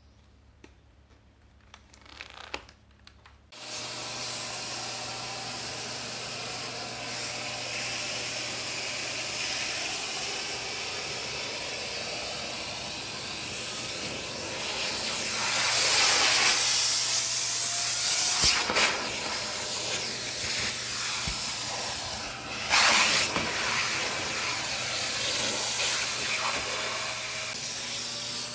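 A vacuum cleaner switched on about three seconds in after a few handling clicks, then running steadily with a low motor hum and a strong airflow hiss that swells louder a couple of times as it is worked.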